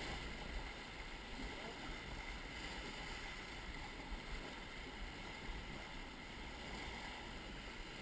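Steady rush of river water around an inflatable whitewater raft, with wind rumbling on the microphone.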